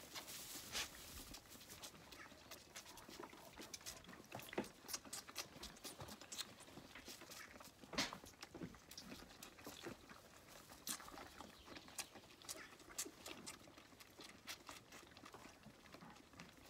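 Faint rustling of hay with scattered sharp clicks and taps from lambs moving and feeding in a straw-bedded pen, and one louder knock about eight seconds in.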